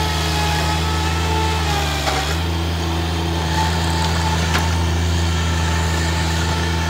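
Bobcat MT100 mini track loader's engine running steadily under a thin whine. About two seconds in, the pitch dips briefly and comes back, and there are a couple of sharp knocks.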